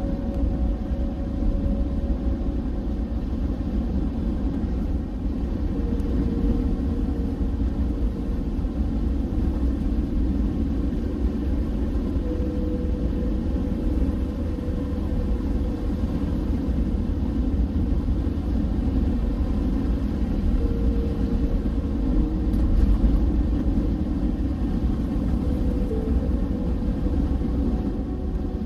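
Vehicle driving along a road: a steady low rumble of tyres and engine.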